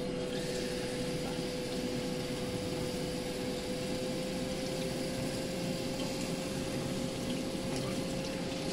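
Kitchen faucet running, its water splashing over a kitten's fur and hands into a stainless steel sink: a steady rush with a constant hum beneath it.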